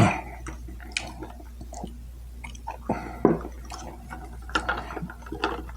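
Close-up chewing of crispy boneless chicken wings, with wet mouth clicks and smacks at irregular intervals over a steady low hum.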